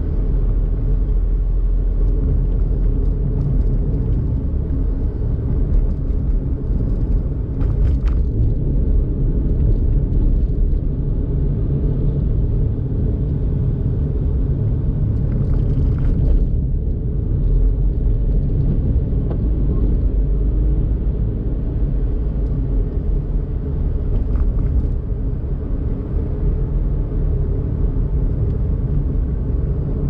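Daihatsu Mira Tocot kei car driving along, its small three-cylinder engine and tyres making a steady low rumble. A couple of faint short clicks come about eight and sixteen seconds in.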